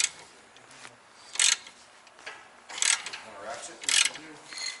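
Hand socket ratchet turning a suspension bolt, giving a short clicking burst on each return stroke, about one every second, four or five times.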